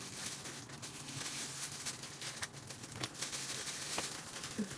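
Light rustling with scattered small crackles from plastic-gloved hands working through hair.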